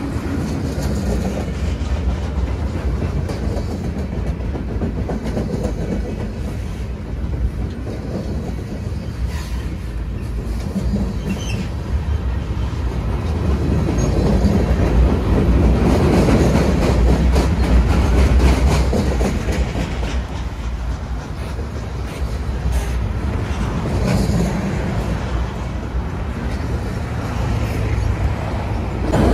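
Freight train of loaded flatcars rolling past close by: a steady rumble of steel wheels on rail with clickety-clack over the rail joints. It gets louder for several seconds about halfway through.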